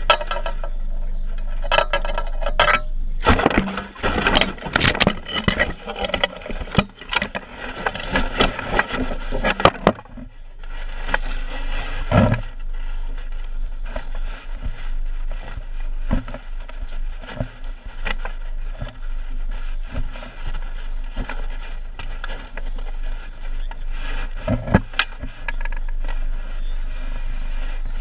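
A landing net's mesh and metal frame rubbing and knocking against the microphone while it is handled. There are dense scrapes and clicks for the first ten seconds or so, a heavy thump about twelve seconds in, then sparser scrapes over a steady low hum.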